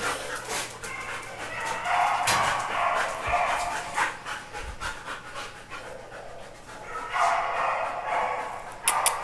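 A dog panting in two stretches, about two seconds in and again about seven seconds in, with scattered light clicks.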